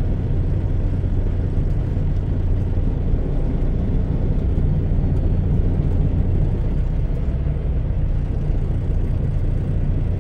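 Semi-truck diesel engine running with a steady low drone, heard from inside the cab, with an even hiss of road noise over it.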